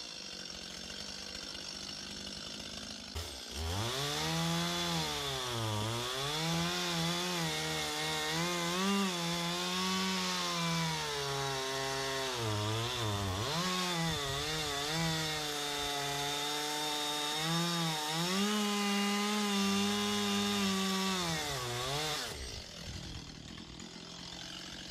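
Two-stroke petrol chainsaw cutting through the central trunk of an olive tree. It idles at first and is revved up about three seconds in. Its pitch then dips and rises repeatedly as the chain bites under load, and near the end it drops back to idle.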